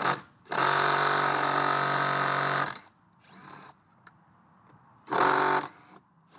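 Electric drill-driver with a star (Torx) bit running steadily for about two seconds, then again briefly near the end, backing out the screws that hold the seat latch.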